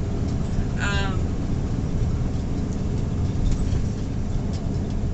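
Steady low rumble of an idling semi truck's diesel engine, heard from inside the cab.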